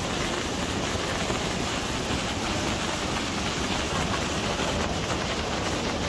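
Steady rushing of a waterfall's flowing water, an even hiss with no breaks.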